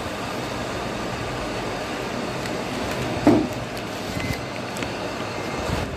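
Steady street traffic noise, with one brief loud sound a little past the middle.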